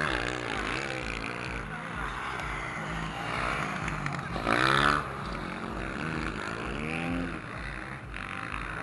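Motocross bike engines revving up and dropping off as riders take the jumps. The loudest is a close bike revving hard about four and a half seconds in, with more bikes revving further off.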